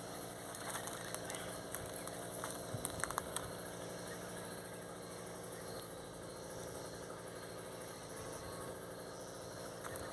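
A motor idling steadily, with a cluster of light clicks and taps about one to three and a half seconds in.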